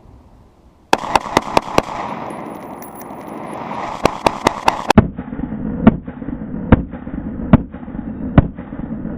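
SIG Sauer 516 AR-15 rifle firing: a quick string of five shots about a second in, another quick string of five around four seconds, then single shots roughly a second apart, each shot ringing out. A steady low rumble runs under the later shots.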